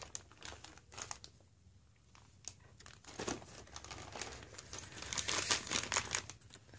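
Clear plastic parts bags crinkling as a hand rummages through them in a cardboard kit box and lifts one out. The rustling pauses briefly about a second and a half in, then grows busier from about three seconds on.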